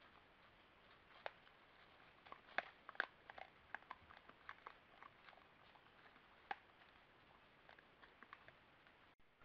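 Collared peccaries feeding at a corn bait pile in dry leaves: irregular sharp cracks and clicks of corn being crunched and leaf litter being rooted through, loudest about two and a half to three seconds in.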